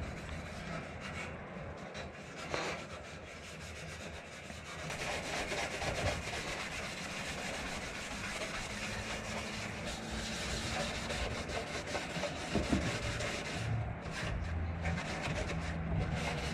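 Green Scotch-Brite scuff pad rubbed back and forth by hand over the painted steel of a Nissan S14's engine bay: a continuous scratchy scrubbing that scuffs the paint ready for primer, fuller after about five seconds.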